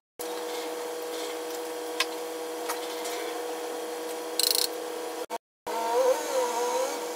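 Makita electric cutter's motor running at a steady speed, giving an even whine, with a couple of light ticks. The sound cuts out briefly about five seconds in, then comes back.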